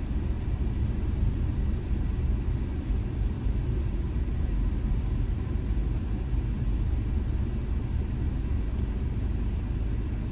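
Steady low rumble of a car's engine and tyres heard from inside the cabin as the car moves slowly in traffic.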